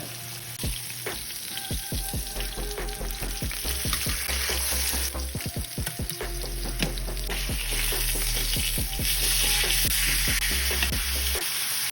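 Steak searing in a hot oiled pan, sizzling steadily with many small pops and crackles.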